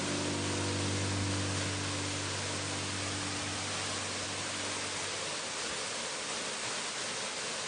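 A steady, even hiss of rainforest water sound, with the last held low notes of soft music fading away over the first few seconds.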